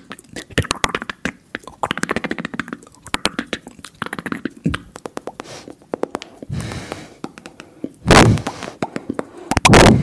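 Fast ASMR mouth sounds close to the microphone: a rapid run of wet clicks and pops for the first half. Then quieter breathy sounds, and two loud breathy bursts near the end.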